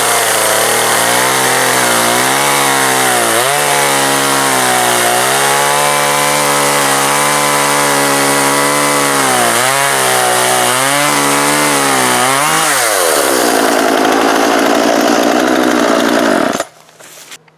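Chainsaw with a freshly sharpened chain cutting through a log. It starts suddenly, its pitch sags again and again as the chain bites into the wood, then rises and holds as it spins free, and it stops abruptly near the end.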